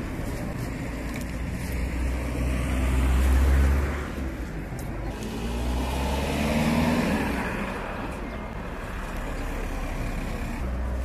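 Road traffic: cars passing on the street, with two louder pass-bys about three and seven seconds in over a steady low rumble.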